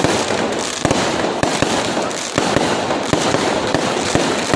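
Fireworks going off: a dense, continuous run of irregular bangs and crackling.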